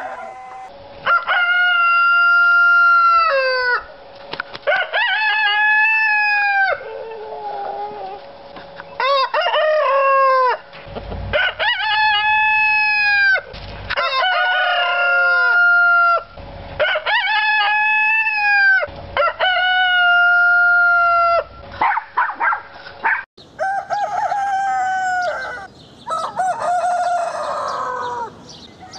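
Rooster crowing over and over: about seven long cock-a-doodle-doo calls, each held two to three seconds and dropping at the end. Near the end the recording changes and shorter, broken calls follow.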